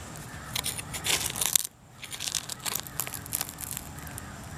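Metal hand digging tool scraping and crunching through dirt littered with broken glass, in short irregular strokes, as it loosens a buried glass bottle.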